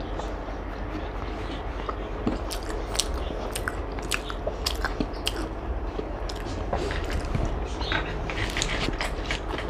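Close-miked chewing of soft mutton biryani: irregular wet mouth clicks and smacks, thicker toward the end, over a low steady hum.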